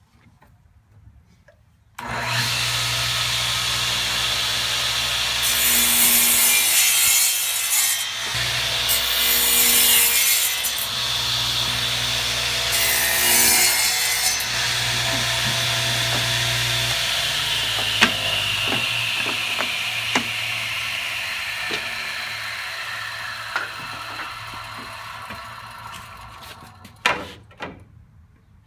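Radial arm saw switched on about two seconds in, its motor running with a steady hum while three crosscuts are made through wooden boards, each a few seconds of loud cutting noise. Then it is switched off and spins down, its whine falling in pitch over several seconds, with a few knocks of wood near the end.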